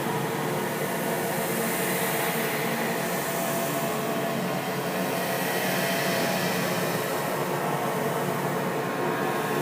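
Steady, dense eerie droning ambience with many faint held tones layered in a hiss, keeping an even level without distinct events.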